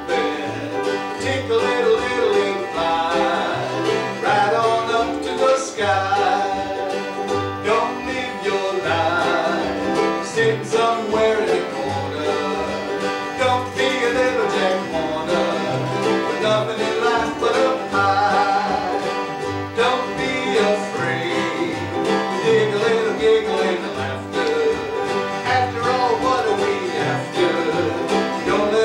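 Small acoustic string band playing a country tune: strummed ukulele and acoustic guitars over an upright megaphone bass keeping a steady bass line, about one note every half second.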